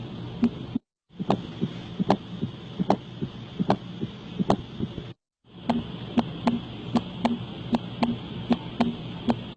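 Recorded heart sounds: three short example clips, each a steady rhythm of sharp beats over a faint hiss, cut apart by brief silences about a second and about five seconds in.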